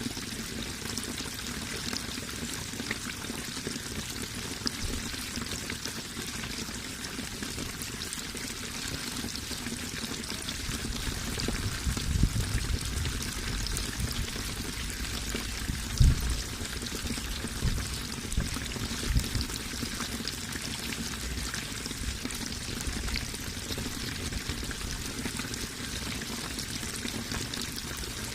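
Running water splashing and trickling steadily, with a few low thuds now and then, the strongest about sixteen seconds in.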